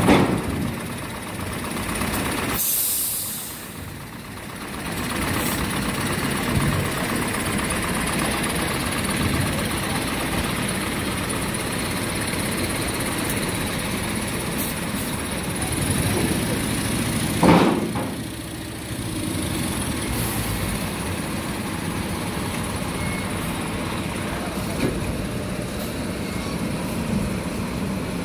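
Heavy truck diesel engine running steadily while a multi-axle low-loader trailer is manoeuvred, with a short air-brake hiss about three seconds in and one brief louder burst about two-thirds of the way through.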